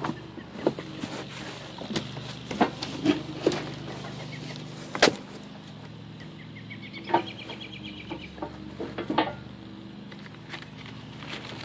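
Cardboard packaging and steel shop-press parts being handled by hand: scattered sharp knocks and rustles over a steady low hum, with a short run of quick high chirps a little after the middle.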